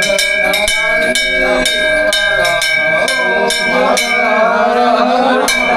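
Metal temple bell struck rapidly, about three strikes a second, its ring holding on steadily, over a crowd of voices.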